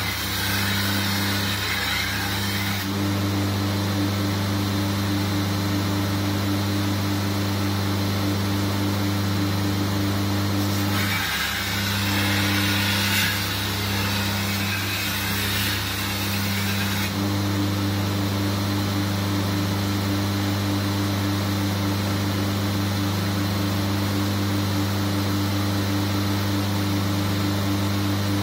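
Belt grinder running with a steady electric-motor hum while a steel sabre blade is ground on it to cut the edge bevel. A loud grinding hiss comes at the start and again for about six seconds midway, when the steel is pressed against the belt.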